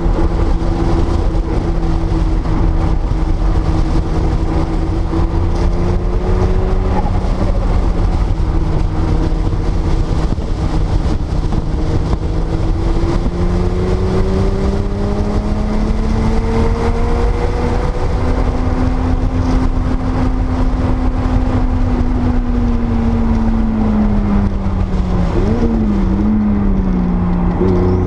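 Porsche 930 Turbo's air-cooled 3.3-litre flat-six running at a fairly steady, moderate pitch. The engine note climbs gradually about halfway through, then falls again with a brief wobble near the end, over heavy low rumbling wind and road noise.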